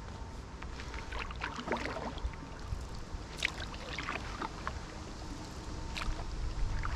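Paddle strokes from a stand-up paddleboard: the blade dipping and pulling through lake water, with irregular splashes and drips, the clearest about two seconds in and three and a half seconds in.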